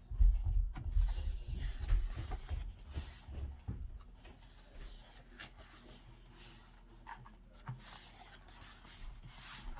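Album photobook being handled and its paper pages turned: heavy low thumps of the book being moved in the first few seconds, then soft page swishes every few seconds.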